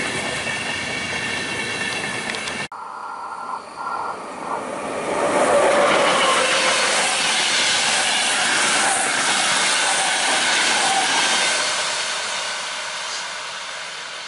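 Passing passenger trains. First the tail of a ČD Railjet goes by with a steady high whine over the running noise, which stops abruptly. Then a locomotive-hauled train of coaches passes close by, its wheel and rail noise swelling to a peak mid-way and fading as it draws away.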